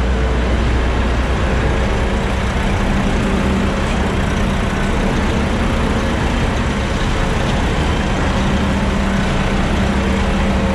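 Concrete mixer truck's diesel engine idling steadily, a constant low drone.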